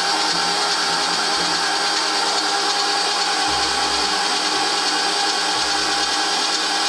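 MerCruiser 7.4 L (454) V8 marine engine turning over on its starter motor, a steady whine. The engine is cranking without catching.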